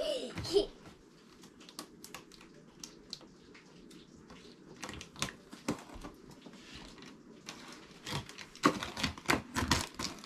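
Scattered light clicks, taps and scrapes of hands working at the taped top of a large cardboard box to open it. The clicks come thicker and louder near the end.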